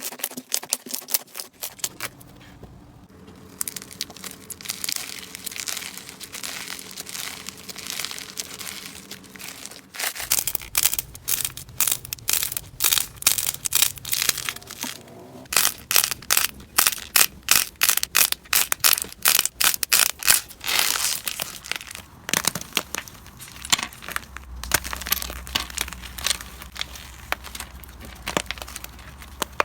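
Slime being squeezed and pressed by hand, giving dense runs of small crackling pops and clicks. There is a short lull about three seconds in, and the crackling is thickest and loudest through the middle.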